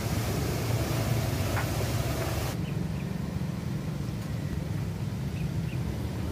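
Muddy floodwater rushing through a dam's outflow, a dense steady rush. About two and a half seconds in it cuts suddenly to a duller, lower rumble of the swollen river.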